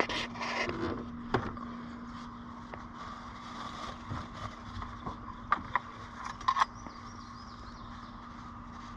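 Light clicks and scrapes of a 2014 Mustang GT's engine oil dipstick being handled, pulled out of and slid back into its tube to check the oil level, in a cluster near the start and another more than halfway through, over a steady low hum.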